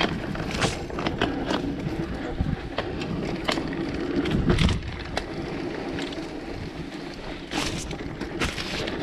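Mountain bike rolling over a rough dirt track, its tyres running with a steady rush and its frame and parts rattling and knocking irregularly over bumps.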